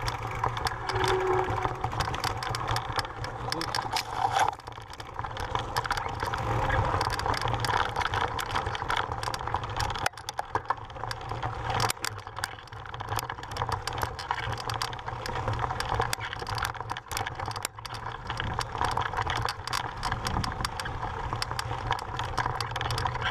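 Mountain bike rolling over a rocky, gravelly dirt trail: tyres crunching on loose stones, with a constant rattle of many small knocks from the bike and handlebar camera mount over a low rumble.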